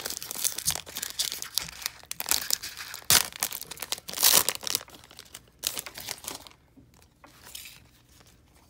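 Foil wrapper of a Panini Contenders football card pack being torn open and crinkled by hand: irregular crackling, loudest about three to four and a half seconds in, dying down near the end.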